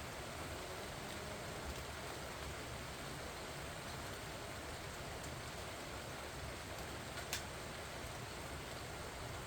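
Steady rain falling on pumpkin vines and their leaves, a dense even patter with one sharper drop-tap about seven seconds in.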